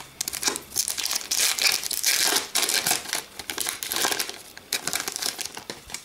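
Foil wrapper of an O-Pee-Chee hockey card pack crinkling and tearing as it is ripped open and the cards are slid out, dying down near the end.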